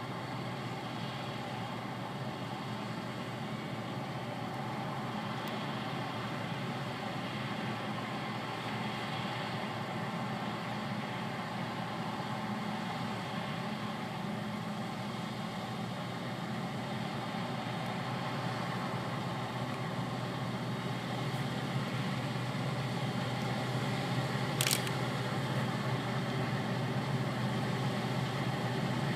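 Combine harvester running steadily while harvesting wheat, a continuous engine and machinery hum that grows gradually louder.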